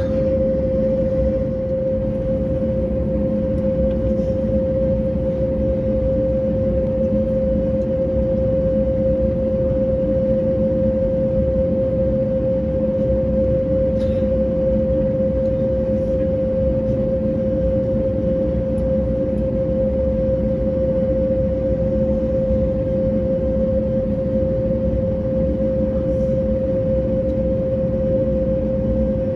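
Cabin noise of an Airbus A321neo waiting on the ground with its Pratt & Whitney PW1100G geared turbofans idling: a steady low drone with a constant mid-pitched hum, unchanging throughout, plus a few faint ticks.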